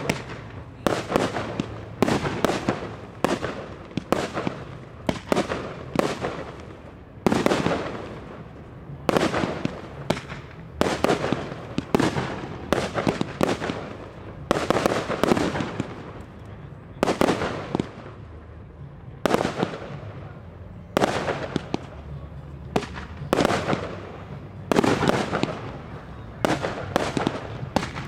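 Professional fireworks display: aerial shells bursting in quick succession, about two sharp reports a second, each trailing off in an echoing tail.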